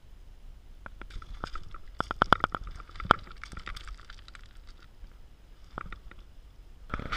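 Footsteps on loose scree and rock: irregular crunches and knocks of boots on stones, busiest about two to three seconds in, with a sharp knock just after three seconds.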